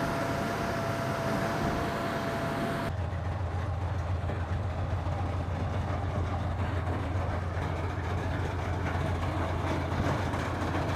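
BMP-2 armoured vehicle running, its diesel engine and tracks making steady machine noise with a thin steady whine. About three seconds in the sound changes abruptly to a steady low engine drone.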